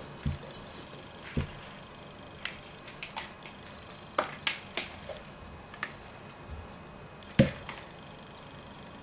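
Scattered knocks and clicks of a stainless steel mixer bowl and a plastic mixing bowl being handled and set down on a silicone mat as dough is moved from one to the other. Two low thuds come in the first second or so, then a run of sharper clicks, with the loudest knock about seven seconds in.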